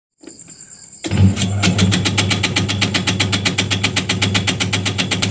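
Motorised tobacco-shredding machine starting up about a second in and then running steadily. Its motor hums, and the cutter mechanism clicks rapidly and evenly.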